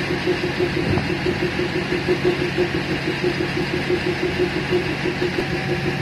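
Diesel engine of a DEMU train idling in the driver's cab, a steady hum with an even pulse of about five beats a second.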